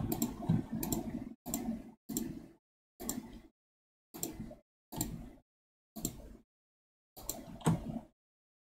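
Computer mouse and keyboard clicks, about one a second, each snapping on and cut off sharply.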